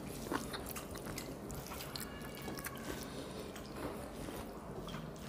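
Faint eating sounds: soft chewing, with small squishes and clicks as rice and curry are mixed by hand on plates, over a low steady hum.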